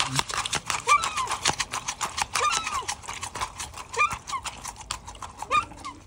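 A seagull pecking fast into a cup of soaked mealworms, its beak clacking rapidly against the cup and food at about ten clicks a second, with a few short squeaks about every second and a half.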